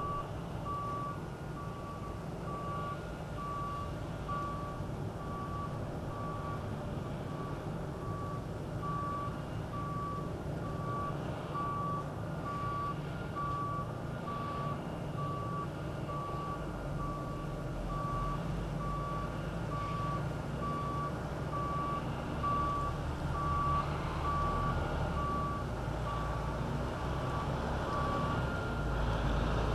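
A truck's reversing alarm beeps steadily at an even pace over the low running of its engine as the truck backs into place. The beeping stops near the end.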